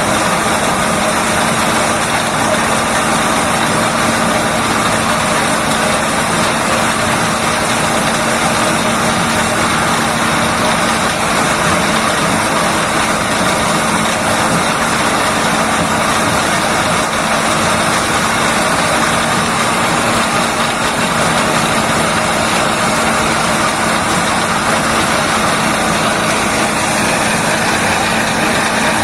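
Motor-driven corn-processing machine running steadily and loudly, a continuous mechanical drone with a constant hum that does not change.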